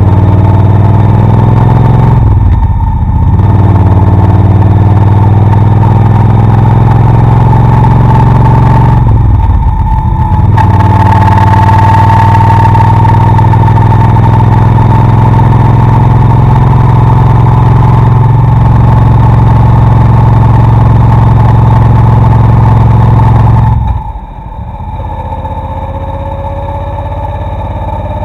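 Motorcycle engine running at a steady speed while riding, with a loud, even drone that briefly dips twice, about 3 and 10 seconds in. Near the end the sound cuts to a quieter engine drone.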